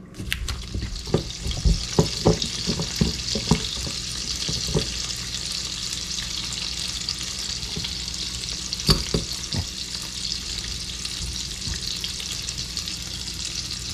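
Sliced bacon sizzling steadily in a hot pan as it is pre-cooked. Several sharp knocks come in the first few seconds, another stands out about nine seconds in, and a few fainter ones follow.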